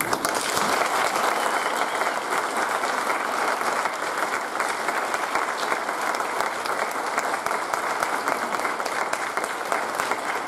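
Audience applauding: many hands clapping at once in a dense, even patter that starts suddenly.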